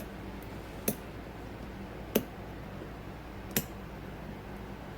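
Three sharp, separate clicks about a second and a half apart, from lock picks and a tension tool working in a Corbin padlock as the pins are picked again.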